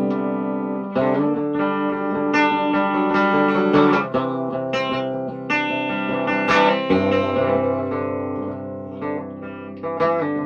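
1966 Gibson SG Standard electric guitar played through its original pickups: ringing chords, a new one struck every second or two, with the bass note moving lower about seven seconds in.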